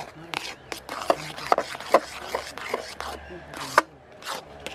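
Metal spoon scraping and knocking against the steel karahi as thick cooked semolina is stirred constantly, about two strokes a second, while it firms into a dough.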